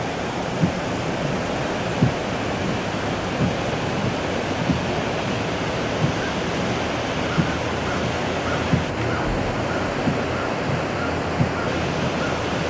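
Steady rushing noise of a car being driven, heard from inside the cabin, with a soft low thump repeating about every second and a half.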